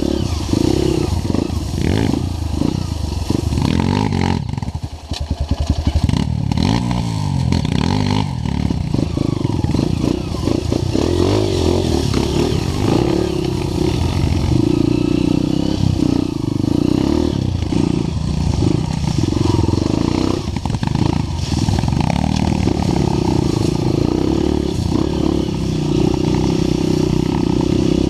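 Off-road motorcycle engine running steadily while being ridden. About five seconds in it drops briefly to low revs, where single firing pulses can be heard, then picks up again.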